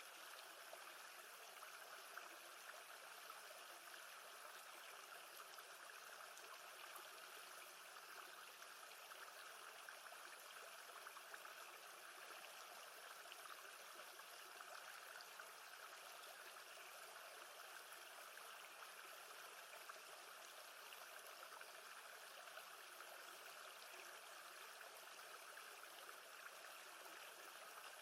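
Faint, steady rush of lake water, an even wash without distinct splashes.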